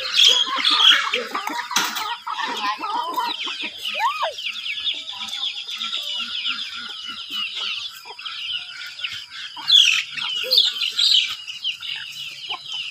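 A flock of chickens with many chicks: a constant chorus of high, rapid cheeping, with hens clucking underneath. There is a single knock about two seconds in.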